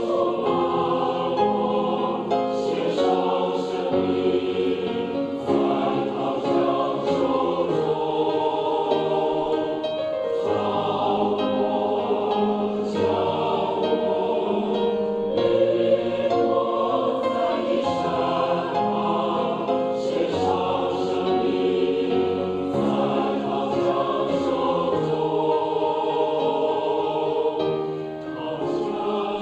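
Mixed-voice church choir singing a Chinese hymn in held chords that change every second or two, with a brief dip in loudness near the end.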